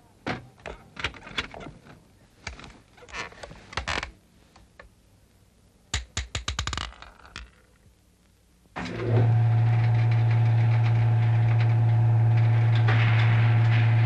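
A run of irregular clicks and knocks, then a quick rattle of clicks, followed by a loud, steady, low mechanical buzz that starts about nine seconds in and cuts off suddenly at the end.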